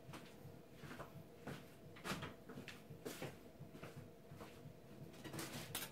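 Faint, scattered light knocks and clicks of someone moving about a small room, over a faint steady hum.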